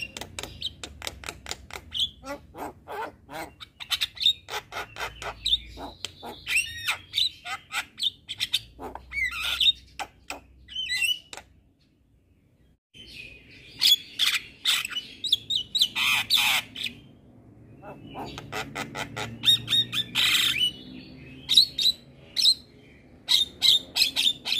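Javan myna calling vigorously: rapid runs of sharp clicking and chattering notes mixed with harsh squawks. The calling stops for about a second near the middle, then resumes with louder, harsher calls.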